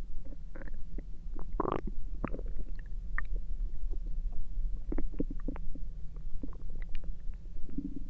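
Human stomach and intestines gurgling, heard close up: a run of small pops, clicks and squelches, with a longer bubbling gurgle about a second and a half in.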